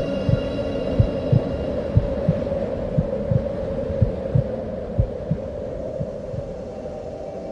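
Heartbeat sound effect, a slow lub-dub about once a second, over a steady low drone; both fade gradually and the beats die away near the end.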